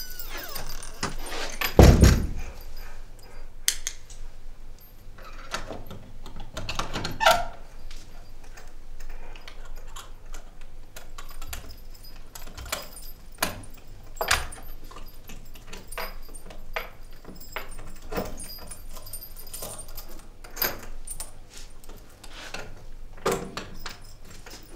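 A bunch of keys jangling and clicking at a door in scattered rattles, with a heavy thud about two seconds in.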